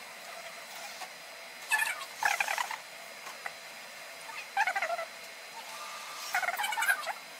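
Human voices played back at double speed, so they sound high and squeaky. They come in three short bursts with pauses between.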